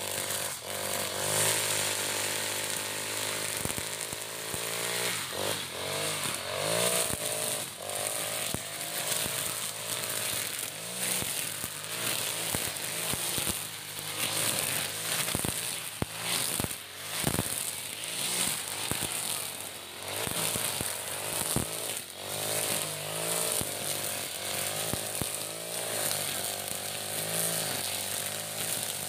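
iPower EH40 40cc four-stroke backpack brush cutter running with a nylon line trimmer head, cutting through grass and weeds; the engine revs rise and fall as the line bites in, over a steady high hiss with scattered sharp ticks.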